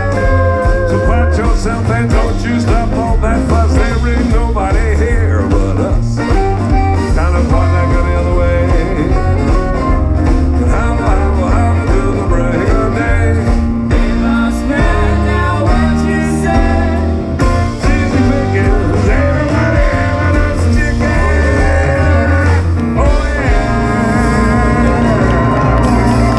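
Western swing band playing live through a PA: a loud, continuous instrumental passage of the song with guitar over a heavy bass end.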